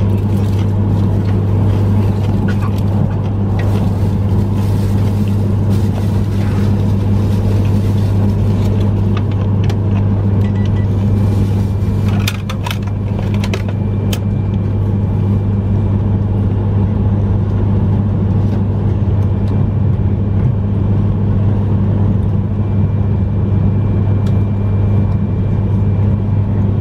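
E3-series Yamagata Shinkansen train running, heard from inside the passenger car: a steady low hum and rumble of the running gear on the rails, with a cluster of clicks about halfway through.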